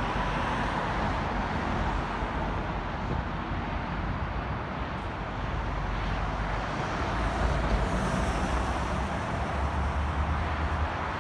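Steady low rumble of distant traffic, heavier in the low end near the end.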